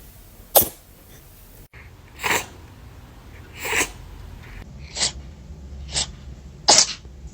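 A cat sneezing six times in a row, each sneeze short and sharp, spaced roughly one to one and a half seconds apart.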